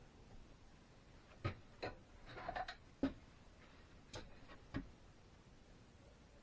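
Half a dozen sharp clicks and knocks at uneven intervals, the loudest about three seconds in: hand tools being picked up, handled and set down at the workbench.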